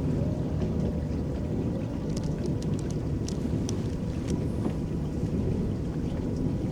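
An electric paddle boat's paddles churning the lake water: a steady low rush of water and hull noise, with a run of light ticks about two to four seconds in.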